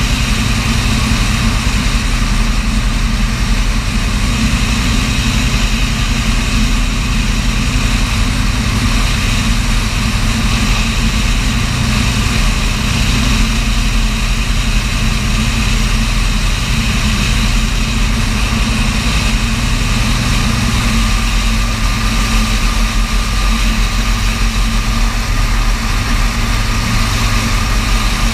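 Light aircraft's piston engine and propeller droning steadily in flight, with rushing airflow noise over it.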